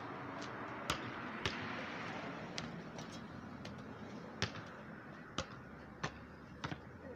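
A basketball bouncing on a paved driveway during play: about eight sharp, irregularly spaced bounces. A faint rushing noise fades after about three seconds.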